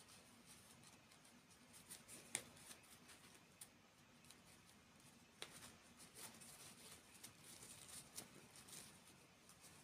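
Faint, scattered light clicks and taps of small objects being handled, over a quiet hiss, with the sharpest click a little over two seconds in.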